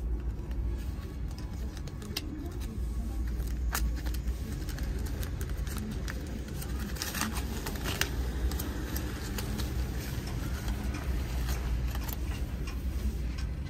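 Aluminium foil wrapper of a toasted sandwich being unfolded and peeled open by hand: irregular crinkling and crackling, densest about seven to eight seconds in, over a steady low rumble.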